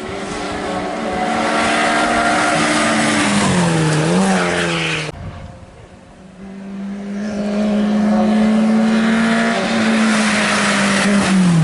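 Rally car engines at high revs: the engine note holds, then falls and picks up again about four seconds in. The sound breaks off abruptly about five seconds in, then an engine comes back held high and steady, falling again near the end.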